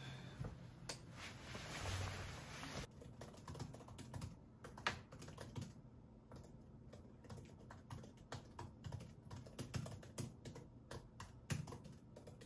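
Typing on a laptop keyboard: quick, irregular key clicks, starting about three seconds in after a faint hiss.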